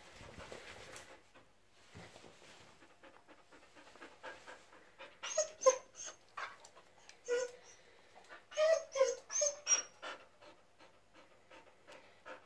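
An Akita Inu panting, then whining in a string of short whimpers that bend in pitch, heard from about four to ten seconds in.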